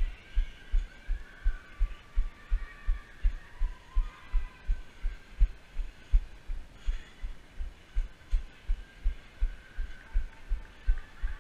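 A runner's footfalls carried through a body-worn action camera as low, regular thumps, nearly three a second.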